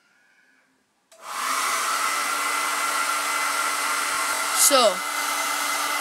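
Hand-held hair dryer switched on about a second in, then running steadily: a constant motor whine over the rush of blown air. Near the end a brief falling voice-like sound rises above it.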